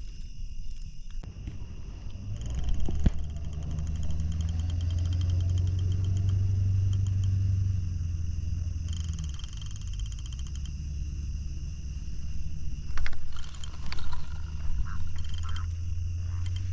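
Frogs croaking low and steadily for several seconds, over the steady high buzz of night insects. A few sharp knocks and rustles near the end.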